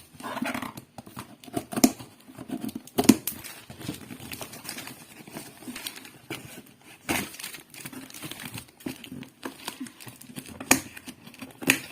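Plastic parcel packaging crinkling and tearing as it is opened, with irregular crackles and a few louder sharp clicks.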